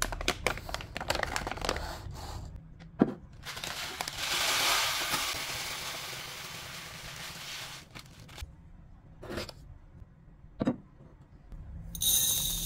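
Plastic rice bag crinkling as it is handled and opened, then dry basmati rice pouring from the bag into a ceramic mug as a steady hiss for about four seconds. A few knocks follow, and near the end the rice is tipped from the mug into a plastic bowl with a brighter hiss.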